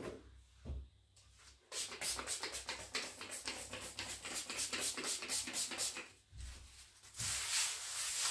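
Two soft knocks, then quick repeated rubbing strokes, about four or five a second, for some four seconds. A brief pause follows, then a steady continuous rubbing from about seven seconds in.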